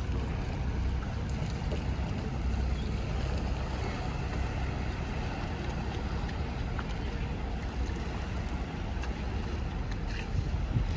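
Steady low rumble of a yacht's engines on the water, with wind buffeting the microphone.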